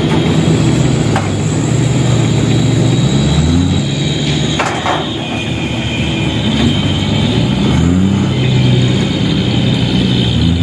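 Fuso dump truck's diesel engine running under load and revving up several times as the truck pulls forward with its tipper bed raised, shaking off the rest of its soil load.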